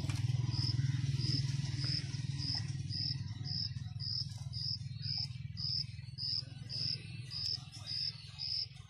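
A cricket chirping in short, evenly spaced high chirps about twice a second, over a steady low hum that fades after a few seconds.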